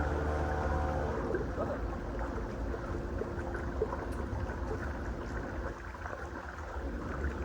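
An engine running, its steady hum dropping away about a second and a half in, leaving a low, rough rumble.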